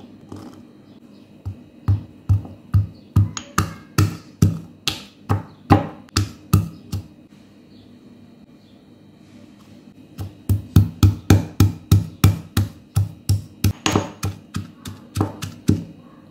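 Pestle pounding garlic cloves and ginger in a marble mortar: two runs of steady thuds, about two to three a second, with a pause of a few seconds in between.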